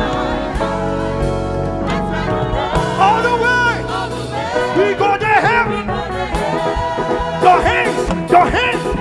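Live gospel praise music from a church band, with sustained chords at first. A voice comes in about three seconds in, singing wavering, sliding lines over the band.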